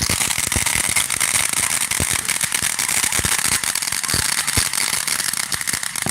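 Fireworks going off: a dense, irregular string of sharp crackling pops and bangs over a steady hiss, with a few louder reports among them.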